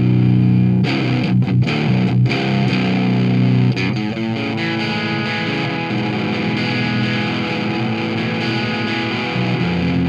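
Electric guitar played through a breadboarded BS170 MOSFET clean boost into an Orange amp, the boost switched on: a loud chord rings out, followed by picked notes and further ringing chords.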